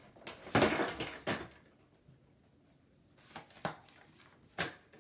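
Handling noises at a child's plastic whiteboard easel: a short rustle of a paper sheet being pressed against the board about half a second in, then a few light, sharp knocks and taps, the last near the end.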